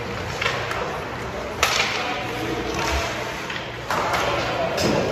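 Ice hockey game in an arena: sharp clacks of sticks and puck, the loudest about a second and a half in and another near the end, over the steady wash of play on the ice.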